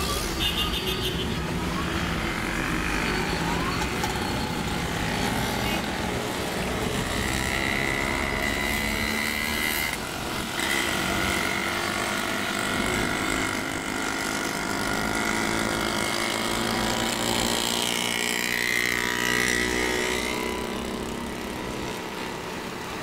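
Engine and road noise heard from inside a moving car, with other traffic passing close by. It runs steadily, with some tones that rise and fall partway through.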